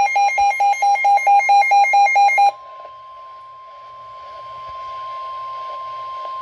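Loud electronic alert beeping, about four beeps a second, for roughly two and a half seconds. It gives way to the steady NOAA Weather Radio warning alarm tone over radio hiss, announcing a special marine warning.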